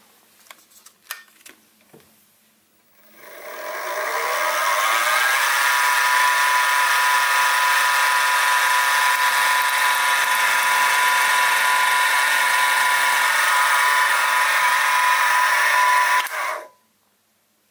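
Sieg SX2P mini mill's spindle spinning up with a whine that rises in pitch about three seconds in, then running steadily with a high whine while a 3/32-inch twist drill bores a port hole in the wobbler engine's cylinder. The spindle stops near the end.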